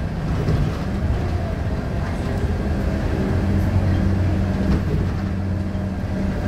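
Scania K230UB bus's diesel engine running steadily under way, a continuous low drone.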